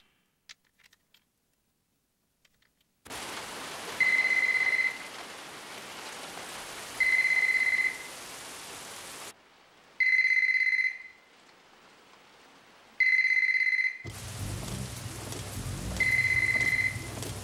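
A telephone ringing unanswered, one-second rings every three seconds in the Japanese ring pattern, over steady heavy rain that starts about three seconds in. A low rumble joins the rain near the end.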